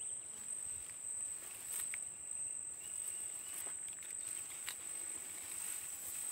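Insects chirring in one steady, high-pitched note, with a few faint rustles as a nylon cast net is gathered and lifted from the grass.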